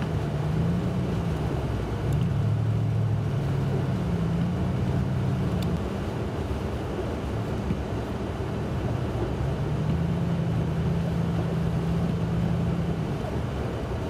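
Engine and road noise heard from inside a moving vehicle on a snow-covered road. The engine's low hum rises and falls in pitch as the vehicle changes speed, over a steady rush of tyre and wind noise.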